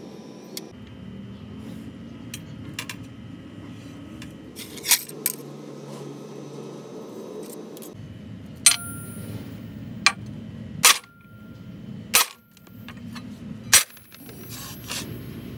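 Steel plates and hand tools being handled while laying out a cut: a scattered series of sharp metallic clanks and clinks, about six in all, a few of them ringing briefly.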